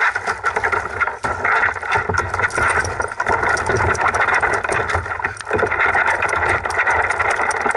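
Wet black Labrador mix scrambling up into a plastic kayak and shaking off: water splashing and spraying, with claws and paws clattering on the hull, in a dense run of sharp clicks and knocks.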